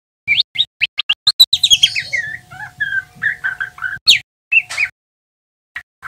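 Juvenile male white-rumped shama twittering its early practice song: a rambling run of quick, short whistled notes sweeping up and down, breaking off for about a second near the end.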